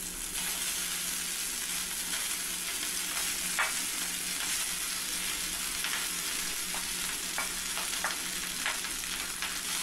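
Hot ghee sizzling steadily in a nonstick kadai as cooked rice is pushed in with a wooden spatula over fried mustard seeds, dal and curry leaves, with a few light ticks from about halfway.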